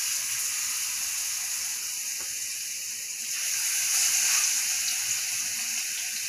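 Seasoned chicken breasts sizzling steadily in hot oil in a frying pan as they are laid in to sear; the sizzle swells about four seconds in as another piece goes into the pan.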